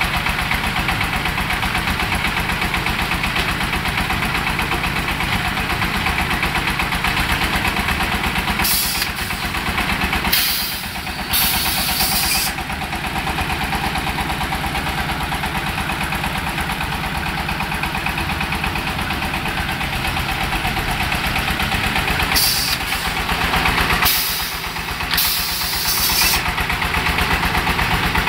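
A 24 HP diesel engine running steadily, driving a clay brick extruder with its conveyor and automatic cutting table. Short bursts of hissing cut in about a third of the way in and again near the end.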